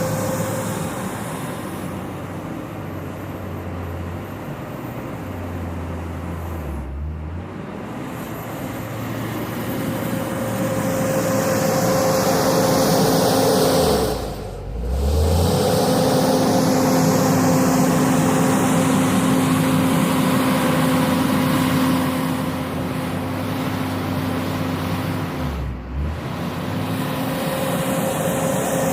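JCB 426ZX wheel loader's diesel engine working as it loads gravel, its pitch and load rising and falling. It is loudest in the middle stretch, with brief sharp drops three times.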